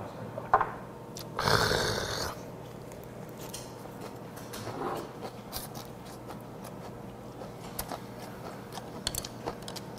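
Close-up eating sounds of a person taking a bite of raw icefish fry wrapped in lettuce: a short, loud slurping intake about a second and a half in, then quiet chewing with faint scattered clicks of mouth and chopsticks.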